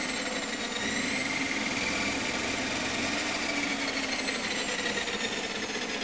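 Electric motor of a homemade plug-in electric bicycle running, a whine whose pitch slowly rises and falls as its speed changes, over a steady rushing mechanical noise.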